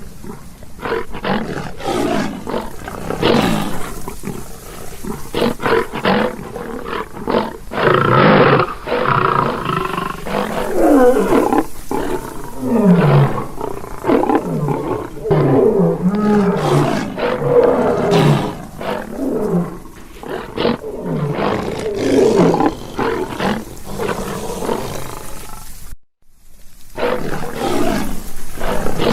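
Lion roaring: a long run of repeated calls and grunts, many of them falling in pitch, with a short break near the end before the calling resumes.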